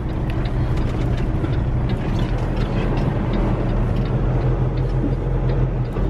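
Semi truck's diesel engine running steadily as the truck rolls slowly, heard from inside the cab, with a constant hiss of wind and road noise over a low hum.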